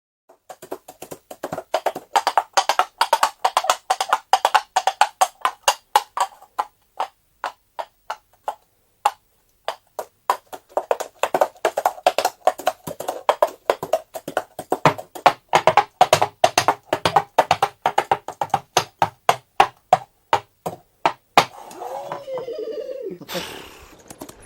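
Foley horse-hoof clip-clop: rapid, irregular hollow clacks in a trotting and galloping rhythm, pausing briefly partway through. Near the end a short wavering pitched sound comes in.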